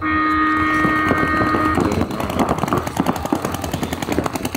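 Several paintball markers firing rapid streams of shots, overlapping. A steady horn-like tone sounds as it begins and fades out within two seconds.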